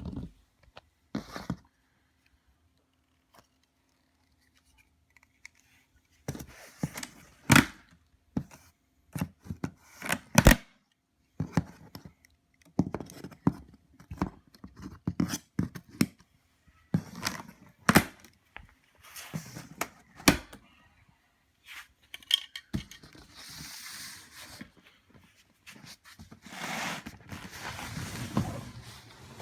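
A cardboard shipping box being opened and unpacked by hand. After a few quiet seconds come a run of sharp knocks, scrapes and tearing sounds, then steadier rustling of packing material toward the end.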